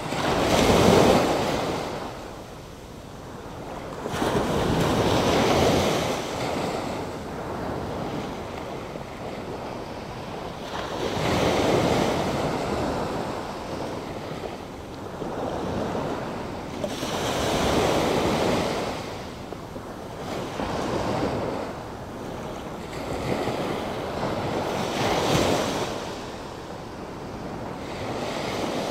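Ocean waves surging and washing on the shore, rising and falling in swells every four to six seconds, the loudest about a second in.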